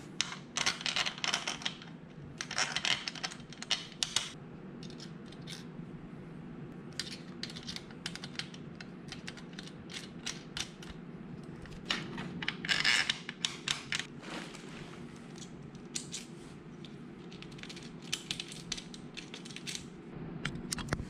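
Small metal bolts and nuts clinking and rattling in irregular bursts as they are handled and threaded hand-tight through plastic corner brackets on an aluminum bed frame, over a steady low hum.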